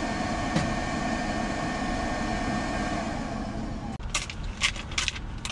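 Steady hum and hiss inside a pickup truck's cabin. After about four seconds it drops away, and a few short clicks and rustles follow.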